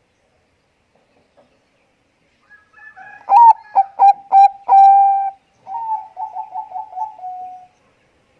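Zebra dove (Bangkok-type perkutut) singing: a few soft lead-in notes, then a loud run of short staccato coos and a held coo. It ends in a quicker, softer string of coos that fades out.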